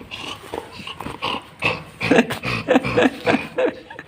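Pet dog making a rapid run of short vocal sounds during rough play, mostly in the second half.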